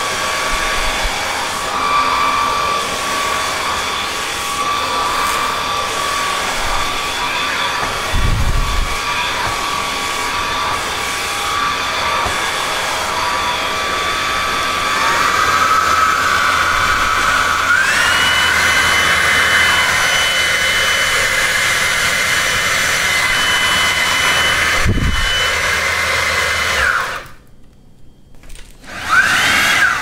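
Xiaomi G11 cordless stick vacuum's motor running with a steady whine. About two-thirds of the way through, the whine steps up in pitch as the motor speeds up, with two low bumps along the way. The motor cuts off near the end, then briefly spins up again with a rising whine and stops.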